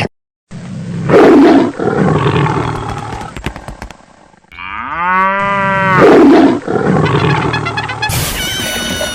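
Two loud animal roars, one about a second in and another around six seconds in, with a pitched sound effect between them that glides up and then down.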